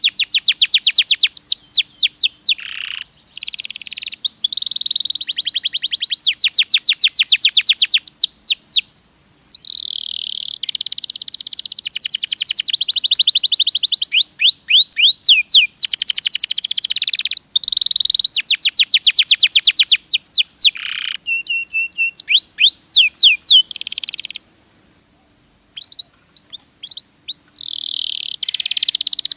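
Domestic canary singing: fast trills of rapidly repeated high notes, one run straight after another, with two short breaks.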